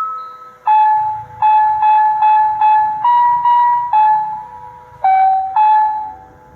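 Municipal disaster-prevention wireless (bōsai musen) loudspeaker playing the evening chime melody in loud, bell-like electronic tones, note by note. It plays the closing phrase, several quick repeated notes and then two longer ones, and the last note rings out and fades near the end.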